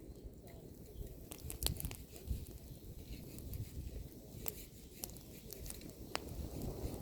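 Bonfire of pruned apple branches crackling, with irregular sharp pops and snaps over a low steady rumble; the loudest pop comes a little under two seconds in.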